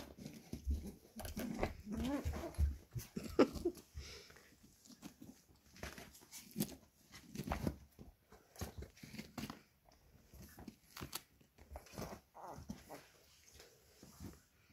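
Young puppies, 25 days old, giving small squeaks and grunts as they move about. Their paws scuffle and click through wood-pellet litter and rustle across bedding.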